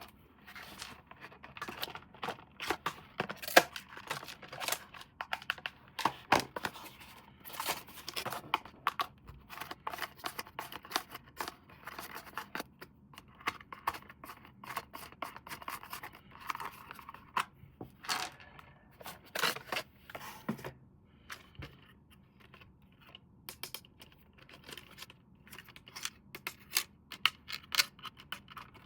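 Toy packaging being opened and handled by hand: irregular tearing, scraping and sharp clicks of cardboard and plastic, with no motor running.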